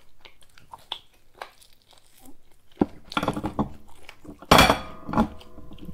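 Close-up sounds of eating by hand: crisp food being broken apart and handled, with faint crackles and clicks at first. From about three seconds in the sounds get louder, with a sharp crunch or smack about halfway through.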